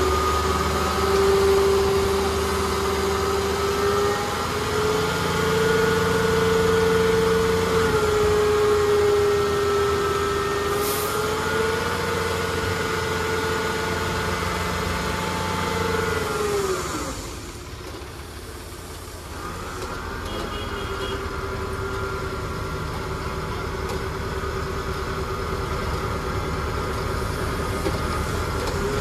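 Tata 3525.TK tipper truck's diesel engine running steadily under load while it drives the hydraulic hoist that tips the body and dumps sand. About 17 seconds in, the engine's pitch and loudness fall away for a couple of seconds, then it picks up again and runs steadily.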